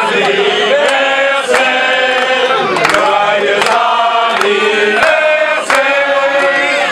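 A group of men singing together loudly in a chant-like chorus, in sustained phrases, with a few hand claps.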